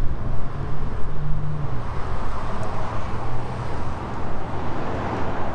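Steady outdoor traffic noise with a low hum that is strongest in the first couple of seconds.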